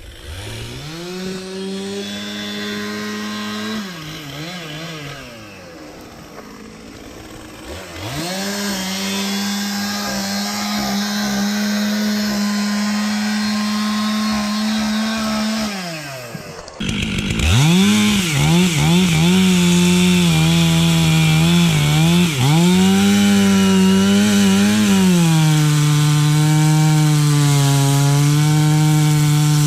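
Gas chainsaw revving and cutting wood, held at high revs for several seconds at a time with repeated dips and rises in engine speed. It becomes abruptly louder about seventeen seconds in.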